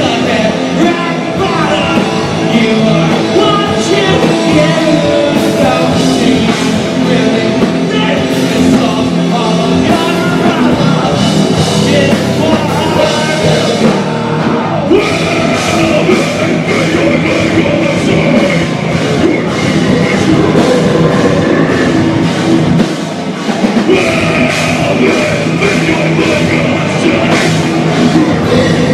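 Live rock band playing loud: electric guitars, bass, a drum kit and a singer's vocals. About halfway through the drums hit in a steady, driving pattern and a strong high guitar or vocal line comes in over the band.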